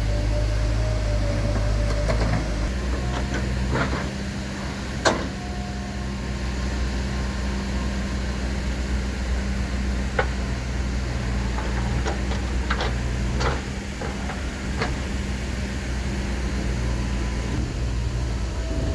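JCB 3DX backhoe loader's diesel engine running steadily while it digs and loads soil, with sharp knocks and clanks now and then, the loudest about five seconds in.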